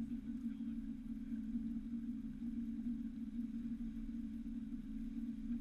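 Outboard motor running at a steady speed, pushing the boat along with a constant low drone, heard from inside the boat's canvas enclosure.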